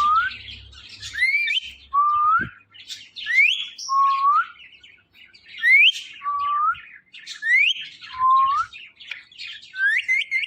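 Ringneck parrot whistling a repeated two-note phrase, a high rising whistle followed by a lower rising note, about every two seconds, over fainter bird chirping.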